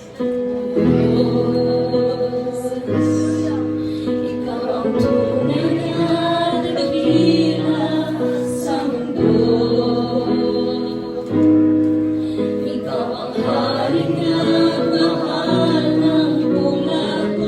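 Gospel praise-and-worship music: a choir singing over sustained chords, moving in phrases a few seconds long.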